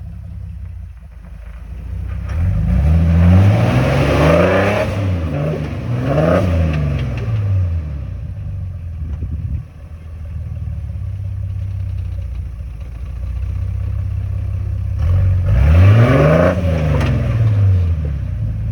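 Off-road vehicle's engine idling, then revved up and back down three times: a long rev about two seconds in, a shorter one near six seconds, and another about fifteen seconds in. These are throttle bursts while crawling up a rock ledge.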